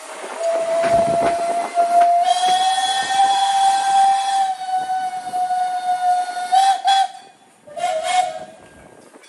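Steam locomotive whistle: one long blast of about six seconds, rising slightly in pitch, followed a second later by a short second blast.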